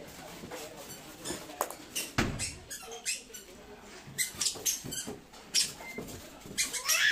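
Polystyrene foam packing blocks being pulled apart and lifted off an air purifier, with its plastic wrapping rustling: irregular scrapes, creaks and crackles, and a thump about two seconds in.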